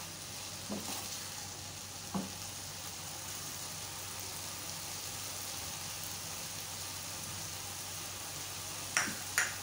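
Diced potatoes and onions sizzling steadily in hot oil in a frying pan, stirred with a spatula at first, with light knocks about one and two seconds in. Two sharp clicks come near the end.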